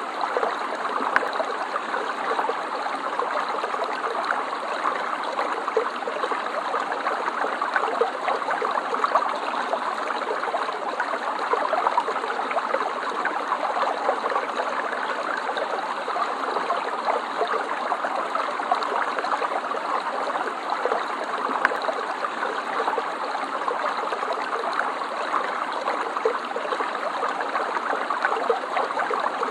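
Water in a stream running steadily over stones, a continuous babbling rush.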